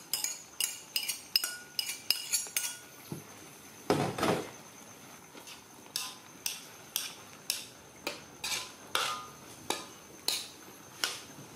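Metal spoon clinking against a ceramic plate and a steel wok: quick taps in the first few seconds, then a steady clink about twice a second, with a longer, louder clatter about four seconds in.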